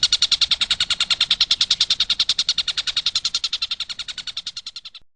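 Tengkek buto kingfisher giving a fast, steady rattling chatter of sharp, high notes, about eleven a second. It fades slightly and stops abruptly near the end.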